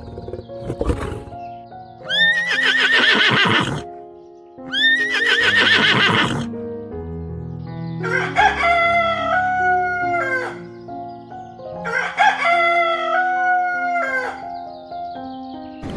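Two horse whinnies, each rising and then trembling, followed by two long rooster crows (cock-a-doodle-doo) that rise, hold and drop off in steps, over steady background music.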